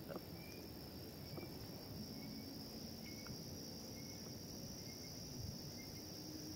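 Steady high-pitched insect chorus, with short faint chirps repeating about once a second.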